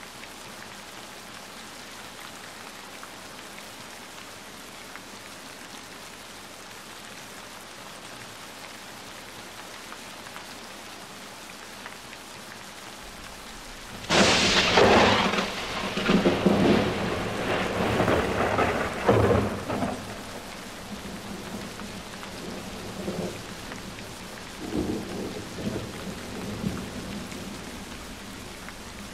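Steady rain hiss, then about halfway a sudden loud roll of thunder lasting about six seconds, with weaker rumbles near the end.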